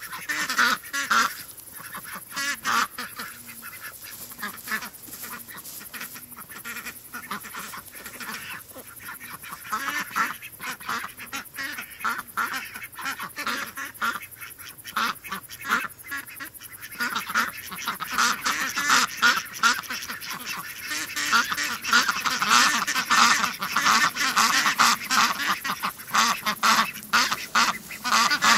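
A flock of domestic ducks quacking continuously, many short calls overlapping. The quacking grows louder and busier about two-thirds of the way through.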